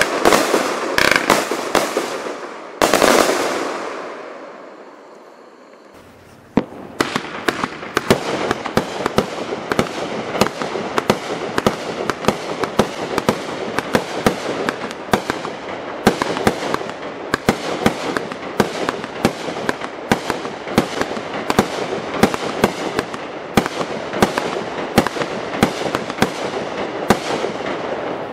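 Consumer firework cakes (multi-shot aerial repeaters) firing. The last bursts of one cake end about three seconds in and fade away. After a short lull, a second cake starts about six and a half seconds in, firing shot after shot amid a dense stream of sharp pops and crackles.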